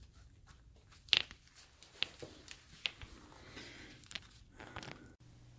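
Faint rustling with a few sharp clicks, the loudest about a second in, from a litter of 4.5-week-old Airedale Terrier puppies moving and playing.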